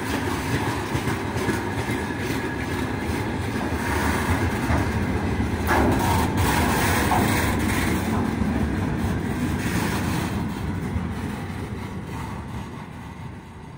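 Loaded freight wagons of a long train rolling past at close range, with a steady rumble of wheels and rattling, clattering cars. The sound fades as the last wagons draw away.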